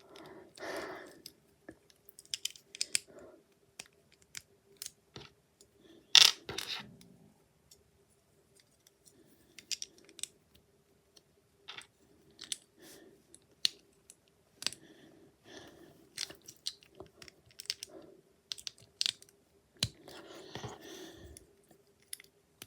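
Plastic Lego bricks being handled and pressed together: scattered sharp clicks, with a louder snap about six seconds in and brief rustling near the start and near the end.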